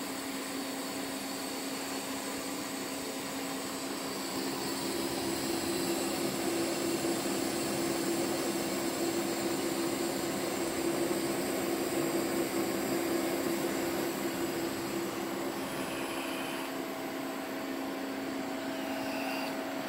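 Axxair SAXX-200 orbital TIG welding set running a test weld with its SATF-115 weld head: a steady machine hum and hiss from the water-cooled power source and the weld. A second, higher hum joins about four seconds in and the sound is a little louder until it eases off near the end.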